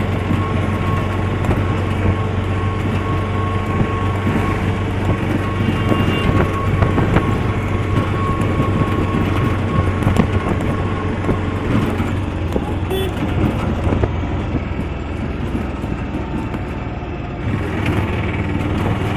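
A vehicle running and moving along, heard from on board: a steady low engine hum under continuous road noise.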